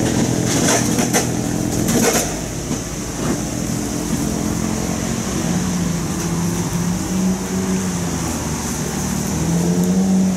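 Cars driving slowly past on a road, their engines and exhausts humming steadily, with a few brief crackles in the first two seconds. A lowered custom car pulls away early on, and the engine of another car grows louder near the end as it approaches.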